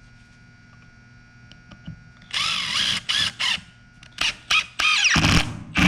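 Cordless impact driver driving a screw into wood: its motor spins up about two seconds in. From about four seconds in, sharp repeated impacts of the hammer mechanism set in, the tool's normal ratcheting action as it tightens the screw.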